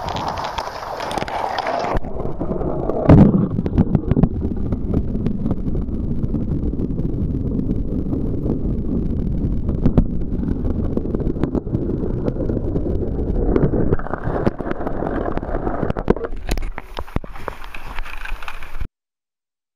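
Muffled, rumbling water noise heard through a submerged camera, with a few sharp knocks. It cuts off suddenly near the end.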